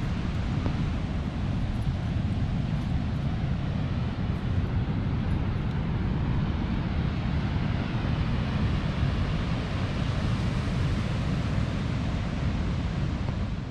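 Wind buffeting the microphone over the steady rush of breaking ocean surf.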